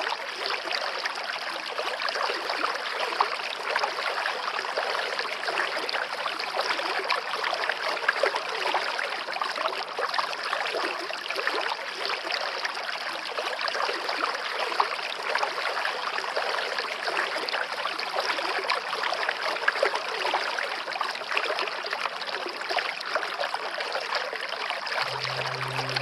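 Steady rush of a flowing stream, water running and trickling without a break. About a second before the end a low held tone of background music comes in.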